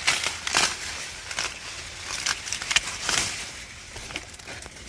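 Dry corn leaves and husks crackling and rustling, with several sharp snaps as an ear of corn is broken off the stalk.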